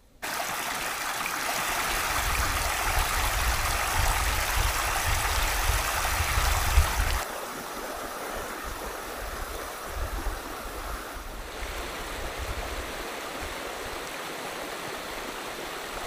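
Shallow rainwater stream rushing and splashing over rocks in a wadi, a steady rush of water. About seven seconds in it drops to a quieter, steady flow.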